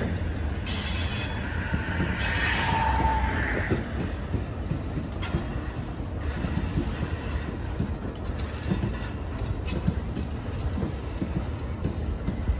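Loaded coal hopper cars rolling past under a steady low rumble. High wheel squeal comes twice in the first four seconds, then scattered clicks as the wheels cross rail joints.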